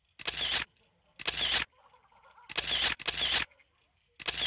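Camera shutter firing five times at uneven intervals, each a short sharp snap, two of them close together near the middle.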